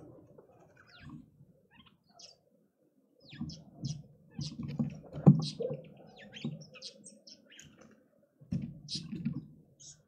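Birds chirping in short, high calls scattered throughout, over low knocks and thuds in two spells, about three to six seconds in and again near the end; the sharpest knock comes about five seconds in.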